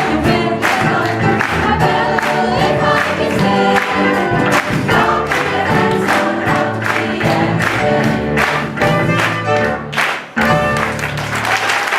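A choir singing with instrumental accompaniment and a steady beat. After a brief break about ten seconds in, it closes on a final held chord.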